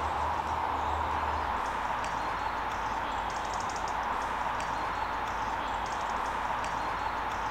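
Outdoor ambience: a steady hiss, with short bursts of fast, high rasping ticks recurring every second or two. A low hum stops about a second and a half in.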